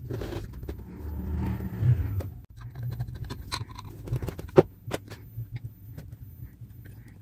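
Handling noises from work on a power-supply case: rustling and scraping, then a series of sharp clicks and knocks, the loudest about four and a half seconds in, over a low steady hum.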